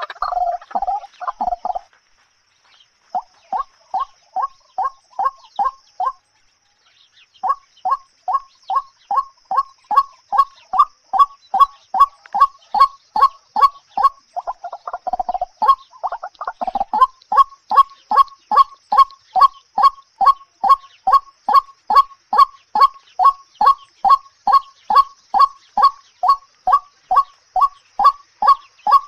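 A bird calling in long runs of short, identical notes, about three a second. The notes pause twice near the start, and a blurred, warbling stretch comes about halfway through.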